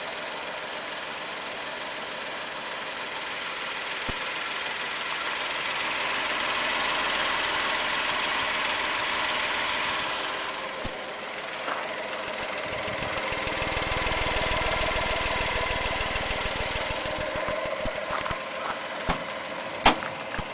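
Honda Acty mini truck's small three-cylinder engine idling steadily, swelling louder with a low throb for a few seconds midway when heard close at the tailpipe. A few sharp clicks near the end.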